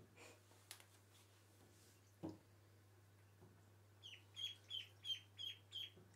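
Ducklings peeping: a quick run of about six short, high peeps, each dropping in pitch, starting about four seconds in. A single soft knock comes a little over two seconds in.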